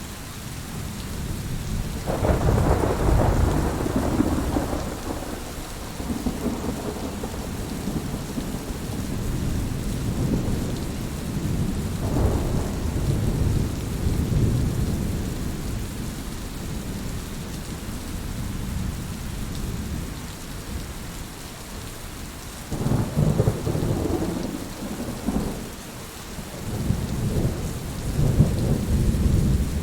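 Steady rain falling, with thunder rumbling low several times: a long roll about two seconds in, another around the middle, and more in the last few seconds.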